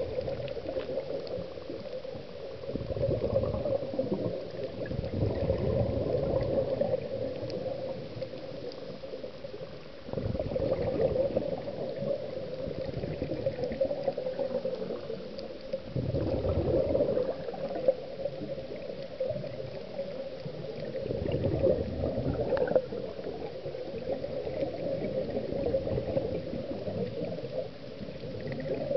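Scuba regulator exhaust bubbles rumbling and gurgling underwater, one slow exhalation about every five or six seconds, over a steady hum.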